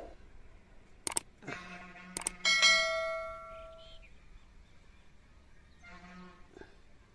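Subscribe-button animation sound effect: two mouse clicks about a second apart, then a bright notification-bell chime that rings and fades away over about a second and a half.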